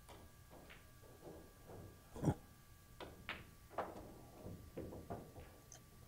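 Pool balls clacking on a pool table: a cue strike, then a run of sharp ball-on-ball and cushion knocks at uneven intervals, the loudest about two seconds in.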